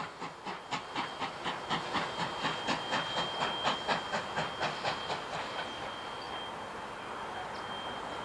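Steam locomotives 5917 (a NSW 59 class 2-8-2) and R766 (a Victorian R class 4-6-4) hauling a passenger train, their exhaust beats coming steadily at about four a second. About five seconds in the beats blur into a steady rumble and hiss of the passing train.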